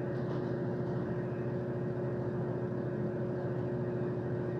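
A steady machine hum with a constant pitch, unchanging throughout.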